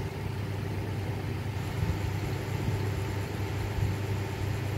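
Steady low machine hum, even and unbroken.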